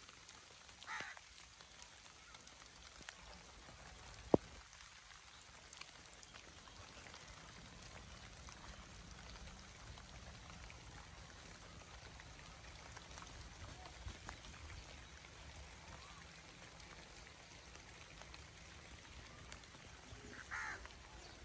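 Light drizzle: faint, scattered raindrop ticks over a quiet rural background, with one sharp tick about four seconds in. A short animal call comes shortly after the start and again near the end.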